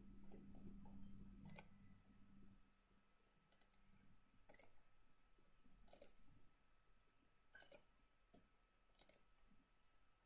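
Faint computer mouse clicks, about seven of them at irregular intervals, over near-silent room tone.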